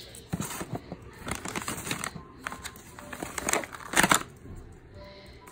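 Plastic treat packaging crinkling and crackling as it is handled, an irregular run of crackles with the loudest about four seconds in.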